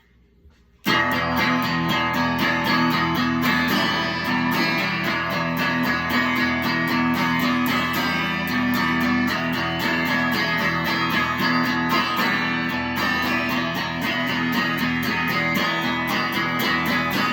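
Guitar strummed in a steady rhythm as the instrumental intro of a song, starting suddenly about a second in after near silence.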